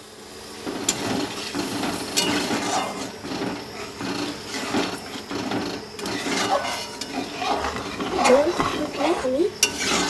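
A metal spatula stirring thin egg-curry gravy in a metal pot just after water has been added to the fried masala. The liquid sloshes and the spatula scrapes, with a few sharp knocks against the pot.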